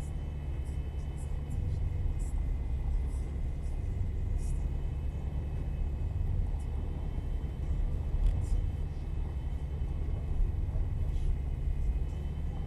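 Vehicle with an automatic gearbox driving along, its engine and road noise making a steady low rumble, with a faint steady whine and scattered short rattles and clicks.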